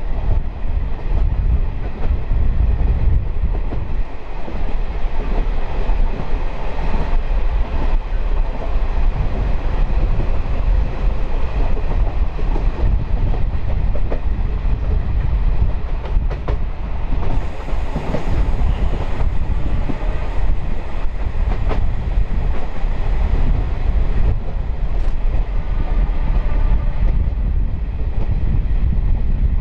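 Diesel-electric multiple unit (DEMU) train running along the line, heard on board: a steady low rumble of wheels on rails and engine with a few sharp clicks. A thin high whine joins in a little past the middle for several seconds.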